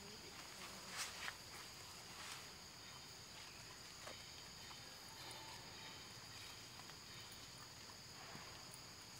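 Faint forest ambience: a steady high-pitched insect drone, with a few soft clicks in the first few seconds.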